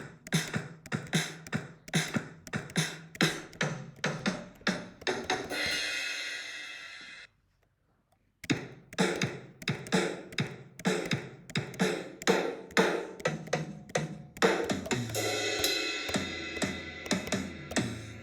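GarageBand sampled acoustic drum kits playing short demo patterns: quick, evenly spaced kick, snare and hi-hat hits, about three to four a second. Each pattern ends on a ringing cymbal wash. The first stops about seven seconds in, and after a brief silence a second kit plays a similar pattern.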